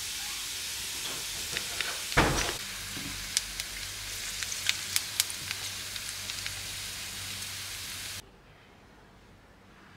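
Chopped red onion sizzling in olive oil in a nonstick frying pan, with scattered pops and crackles as it is stirred with a silicone spatula, and one louder knock about two seconds in. The sizzle cuts off suddenly about eight seconds in.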